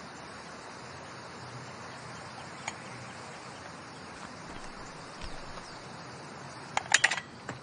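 Steady outdoor background hiss, with one faint click a third of the way in and a quick cluster of several sharp, loud clacks near the end.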